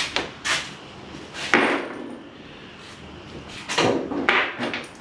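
Steel bolts and small hardware clattering on a wooden workbench top as they are picked through by hand: about five separate bursts of clinks and rattles, the loudest about a second and a half in.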